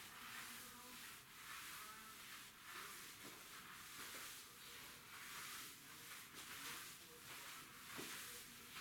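String mop swishing back and forth across a tiled floor, a faint, even scrubbing about twice a second.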